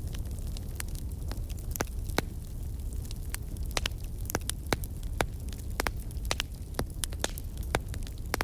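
Burning wood crackling, with sharp irregular pops and snaps several times a second over a steady low rumble.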